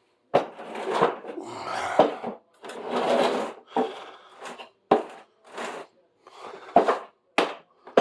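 Irregular knocks, clatters and scraping of things being handled and moved, with about half a dozen sharp knocks spread through it.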